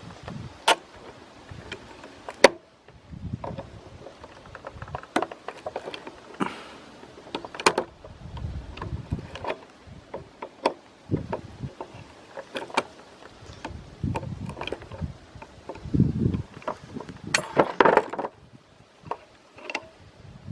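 Irregular clinks, taps and knocks of hand tools and metal parts while working at the through-bolts of an old DC motor to take it apart, with a sharp knock about two and a half seconds in.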